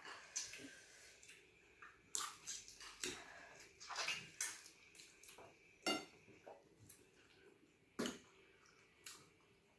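Eating sounds from a person eating soup: irregular clinks of tableware and short wet mouth noises from chewing and slurping. The sharpest clink comes about six seconds in.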